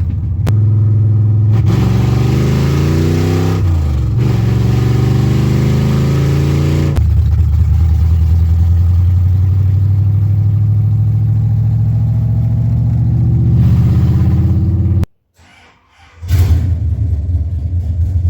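Freshly built 351 Windsor V8 under way on the road, revving up and dropping in pitch at gear shifts about four and seven seconds in, then pulling steadily. The engine sound cuts out for about a second near the end, then returns.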